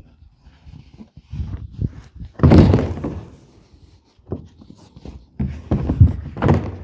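Irregular thunks, knocks and scraping as a piece of IBC tote plastic is handled and fitted over the tote's steel cage. The loudest clatter comes about two and a half seconds in, with more knocks near the end.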